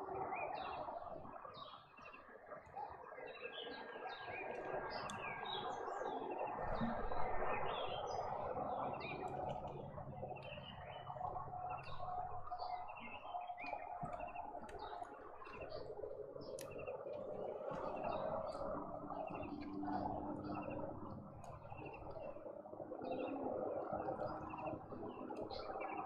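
Several small birds chirping and twittering in quick short notes throughout, over a steady background noise.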